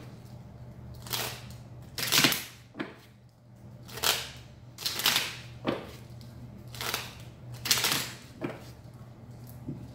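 A deck of playing cards being shuffled by hand: short bursts of rapid card riffling, about one a second.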